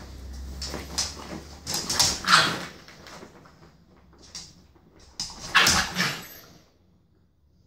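British bulldog puppy growling and yapping in short bursts at an older dog during play-fighting. The loudest outbursts come about two seconds in and again near six seconds.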